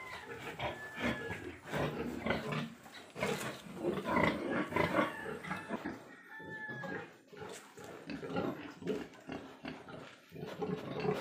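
Pigs grunting, a run of short, irregular grunts.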